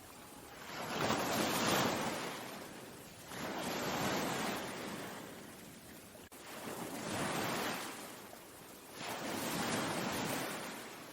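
Ocean waves washing in: a steady rush of surf that swells and fades about four times, each surge lasting two or three seconds.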